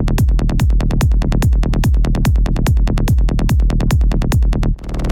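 Trance music: a steady four-on-the-floor kick drum about twice a second under fast hi-hats. Near the end the kick stops briefly under a noise sweep, then comes back in.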